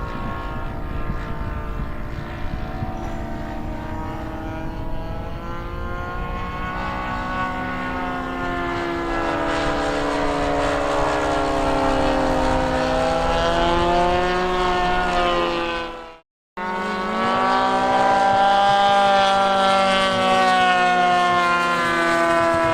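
OS GF40 four-stroke single-cylinder petrol engine of a large RC Hawker Typhoon running in flight, its pitch slowly rising and falling as the model flies past and changes throttle. The sound cuts out for a moment about two-thirds of the way through, then the engine note returns.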